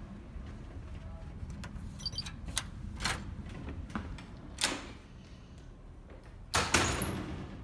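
Steady low rumble of the ferry, with a scatter of clicks and knocks and a louder, longer noisy clatter about six and a half seconds in.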